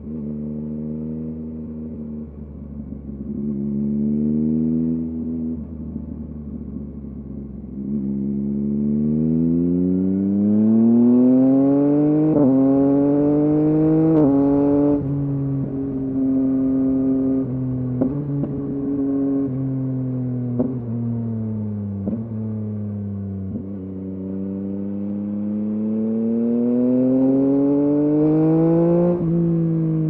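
2023 Yamaha MT-09's three-cylinder engine through a LeoVince LV Race exhaust, under way. Its pitch climbs steadily as the bike accelerates, then drops sharply at each gear change. A steadier cruising stretch in the middle is followed by another long climb and a shift near the end.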